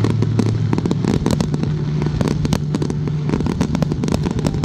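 Aerial fireworks going off in rapid succession, a dense run of bangs and crackles. A steady low hum runs underneath.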